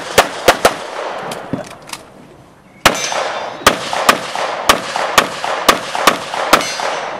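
Pistol shots during a practical-shooting stage, each a sharp crack with a short echo. Three come quickly, then a pause of about two seconds, then a second string of about eight shots about half a second apart.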